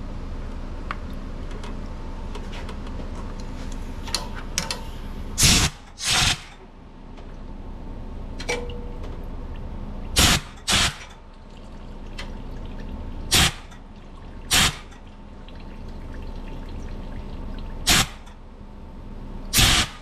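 Eight short hisses of compressed air from a blow gun, in four pairs, blown back up a fuel line into the tank to clear debris clogging the tank's outlet filter screen. Between the blasts, fuel trickles down into a metal drain pan.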